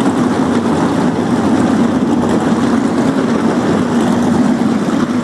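Race car engine running steadily and loudly, with no clear revving.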